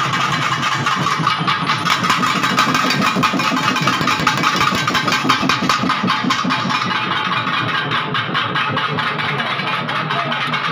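Fast, loud festival drumming on a two-headed barrel drum beaten with sticks, with a steady high tone held above the beats and crowd noise.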